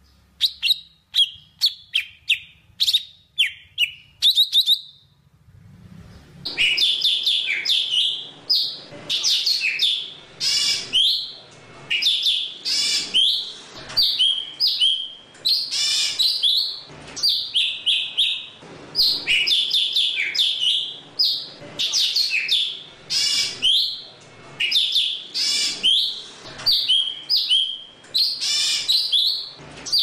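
Golden-fronted leafbird singing to call its flock. For the first few seconds it gives a string of separate short, high chirps. From about six seconds in it runs on in fast, varied warbling phrases broken by short pauses.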